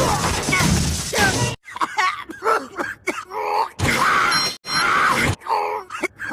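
A short cartoon vocal sound clip, groaning yells with crash-like noise, played over and over with heavy audio effects applied.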